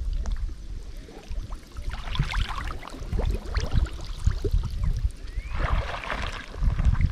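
Water splashing and sloshing, with short irregular splashes over a steady low rumble, and a louder stretch of splashing about five and a half seconds in.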